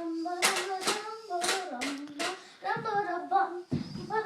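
A child singing, holding and sliding between notes, with words the recogniser did not catch.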